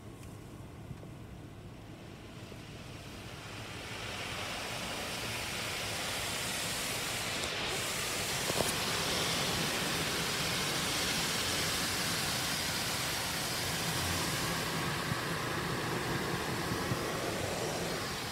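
Water spray from a Ryko automatic car-wash gantry striking the car, heard from inside the cabin. It starts faint, swells about four seconds in, and holds as a steady rushing hiss.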